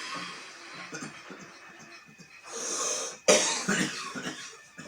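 A man's morning smoker's cough: quieter throat noises, then a long drawn-in breath and one sharp, loud cough a little past the middle that trails off.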